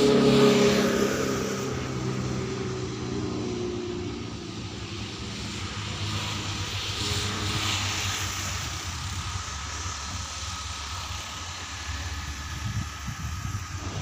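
Diesel locomotive and its train running past and pulling away. The engine's droning note is loudest at the start and dies away over the first few seconds, leaving a quieter steady rumble and rattle of the train.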